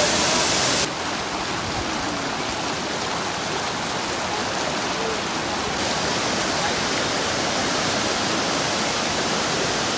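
Manthokha waterfall's falling water, a steady rushing noise. About a second in it drops suddenly in level and loses its highest hiss, then runs on evenly.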